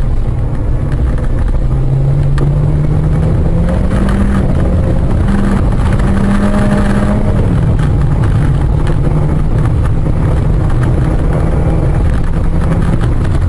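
Car engine and road rumble, the engine note climbing over the first several seconds as the car accelerates, then dropping slightly and holding steady.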